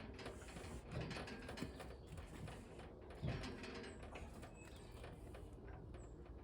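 Faint scattered knocks and clicks over a low steady hum, with a couple of short bird chirps near the end.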